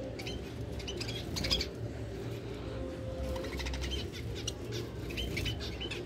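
A mixed flock of small cage birds (lovebirds, budgerigars and finches) chirping in many short, high calls, with a flutter of wings about one to one and a half seconds in.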